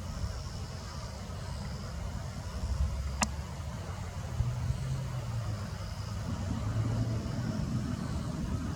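Steady low rumble of road traffic from a large arterial road, with a vehicle engine's hum rising for a few seconds midway. A single sharp click about three seconds in.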